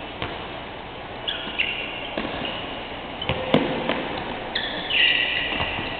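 Basketball shoes squeaking on the court floor: several short, high squeals, the longest near the end. A basketball bouncing gives scattered thuds, the loudest about three and a half seconds in.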